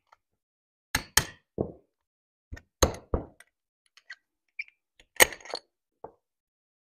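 Small metal engine parts (piston, wrist pin and spiral lock) being handled, giving a scattered series of sharp clicks and clinks with a few dull knocks. The loudest click comes about five seconds in.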